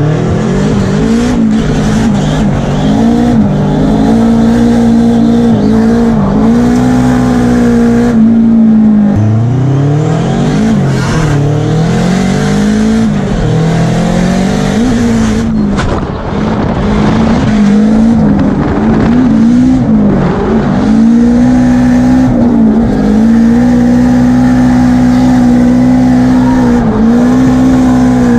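Drift car's engine heard from inside the cabin, revving up and held at high revs through long slides. The revs drop and climb again twice, with tyre squeal from the sliding car underneath.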